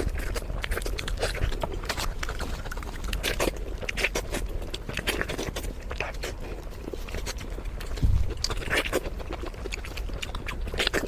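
Close-miked eating: chewing and biting, heard as an irregular run of wet clicks and smacks, with a low thump about eight seconds in.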